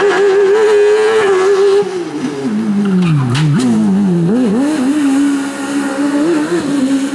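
Competition car engine at a hill climb, held at high revs, then lifting off about two seconds in so the revs fall steeply, with a few quick throttle blips, before settling at a steady, lower pitch.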